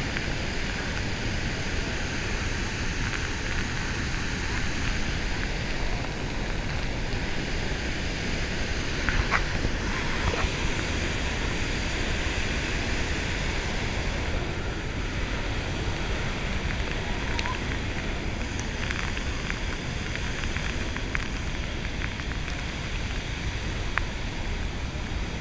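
Steady rushing roar of Victoria Falls and its drenching spray, with wind buffeting the microphone. A couple of sharper knocks come about nine and ten seconds in.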